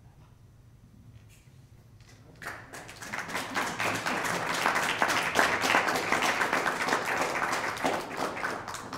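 Audience applauding: it starts about two and a half seconds in, swells into steady clapping, and tails off near the end.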